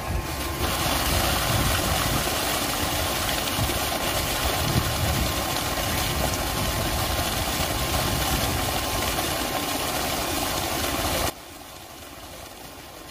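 Small electric motor running steadily, driving a belt-driven model water pump, with a faint steady whine. It drops much quieter about two seconds before the end.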